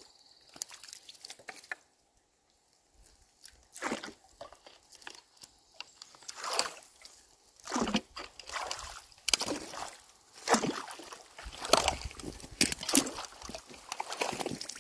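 Shallow water sloshing and splashing in short, irregular bursts as sticks and mud are pulled out of a beaver dam by hand and with a pole to clear a clogged culvert. There is a brief near-quiet gap about two seconds in, and the splashing grows busier and louder in the second half.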